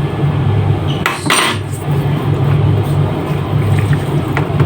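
Kitchen utensils and dishes clinking, with a short clatter about a second in and a few light ticks later, over a steady low hum.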